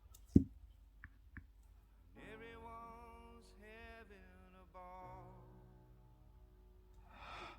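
A single sharp click, followed by two faint ticks, then quiet background music with a wavering melody that starts about two seconds in.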